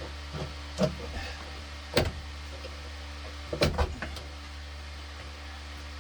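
A handful of sharp clicks and knocks from hands and tools working loose parts under a car's dashboard: one a little under a second in, one at about two seconds, and a quick cluster about halfway through. A steady low hum runs underneath.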